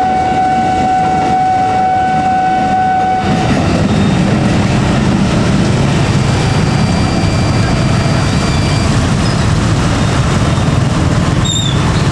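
Train passing slowly through a level crossing in heavy rain. A steady, high warning tone sounds over the hiss of rain for about the first three seconds, then a loud low rumble of the train covers it for the rest.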